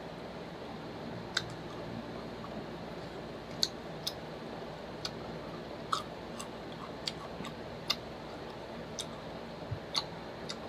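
Close-miked eating sounds: about a dozen short, sharp, irregular lip smacks and mouth clicks from chewing fried chicken and licking fingers, over a steady low hum.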